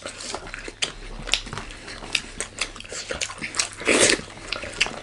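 Close-miked chewing and mouth sounds of people eating rice and curry: an irregular string of short wet clicks and smacks.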